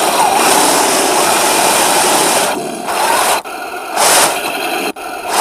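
Heng Long T-90 radio-controlled tank running in snow: its electric drive motors and tracks make a steady grinding noise that cuts out briefly three times in the second half as the tank stops and starts, with a sharp click near the end.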